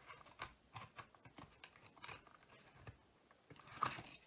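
Faint, scattered clicks and taps of the plastic body shell of a Lima 00 gauge Class 31 model locomotive being pressed down onto its chassis, with a louder one near the end.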